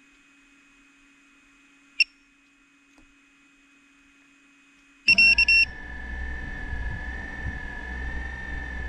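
A single short beep about two seconds in; about five seconds in, a quick run of high beeps, then the 7-inch FPV quadcopter's brushless motors spin up and run at a steady idle whine, the drone armed and ready for takeoff.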